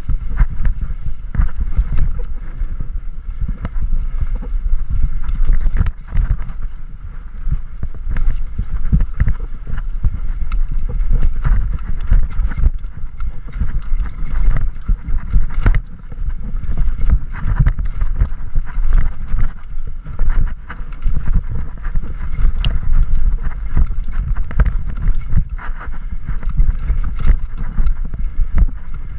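Mountain bike descending a rough dirt singletrack, heard from a camera on the rider: steady low wind rumble on the microphone, tyres rolling over dirt, and the bike rattling and knocking over bumps.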